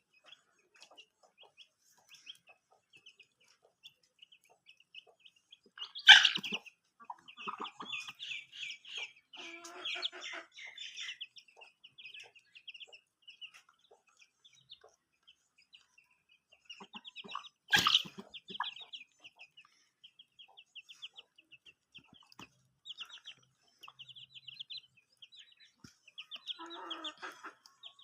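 Baby chicks peeping constantly in quick short chirps, with a hen clucking now and then. Two sudden, loud sharp sounds stand out, about six and eighteen seconds in.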